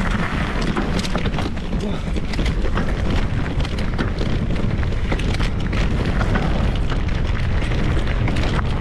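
Mountain bike rolling down a loose gravel forest trail: a steady low wind rumble on the bike-mounted camera's microphone, with tyres crunching over stones and frequent short clicks and rattles from the bike.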